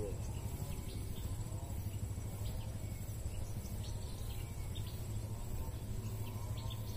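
Riverside outdoor ambience: a steady low rumble under a thin, continuous high insect whine, with faint scattered chirps.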